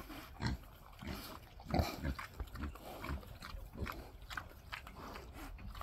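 Pigs grunting while they feed with their snouts in the dirt: short, low grunts at irregular intervals.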